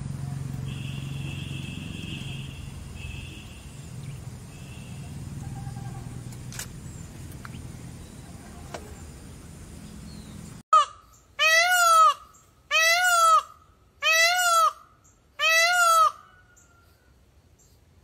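Indian peacock calling five times in a row, about a second and a half apart, each call a loud wail that rises and then falls in pitch. Before the calls, a quieter stretch of outdoor background with a low rumble and faint high chirps.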